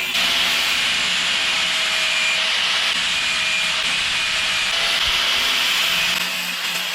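Steady abrasive rasping of metal being sanded or ground, which starts abruptly and stops about six seconds in; this is typical of dressing down the worn part during a motorcycle brake pedal repair.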